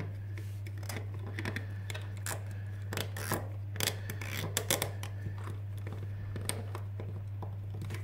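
Plastic zip tie pulled tight through its ratchet around the network cable on a socket module: scattered short plastic clicks and scrapes over a steady low hum.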